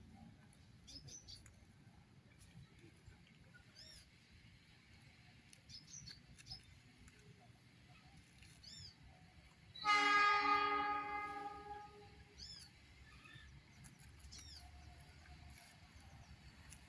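Diesel locomotive horn sounding one blast of about two seconds, a chord of several steady tones, about ten seconds in from the approaching train. A bird gives short high chirps every few seconds.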